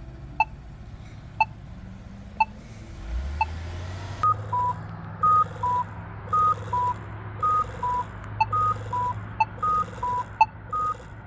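Polara iNS accessible pedestrian signal ticking its locator tone about once a second; about four seconds in the walk signal starts, a two-note cuckoo chirp, high then low, repeating about once a second over the continuing ticks. The cuckoo marks the walk interval, the tone conventionally used for a north–south crossing. Traffic engines run underneath.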